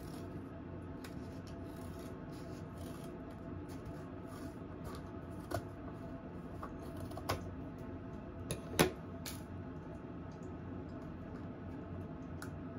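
Kitchen scissors snipping through the top of a paper carton of chopped tomatoes, with a few sharp clicks, the loudest near the end, over a steady low hum.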